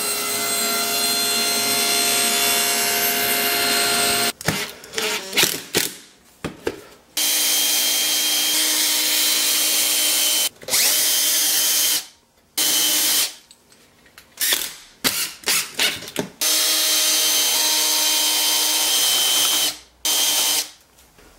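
An electric power tool cutting wood, running in four bursts of a few seconds each, with knocks and clatter in between.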